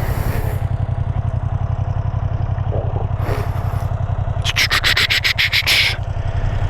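Ducati Panigale V2's V-twin engine idling with a steady low, rapid pulse. A brief run of quick clicks comes about four and a half seconds in.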